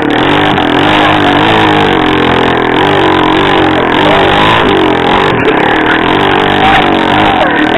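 ATV engine running hard, its pitch rising and falling as the throttle is worked.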